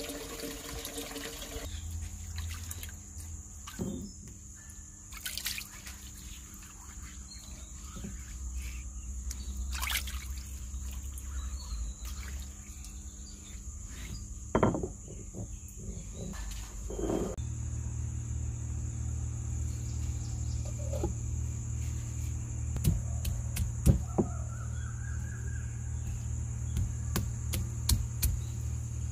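Scattered knocks and clicks of a stone roller on a wet grinding stone as lovi fruit is crushed, more frequent near the end, over a steady low hum.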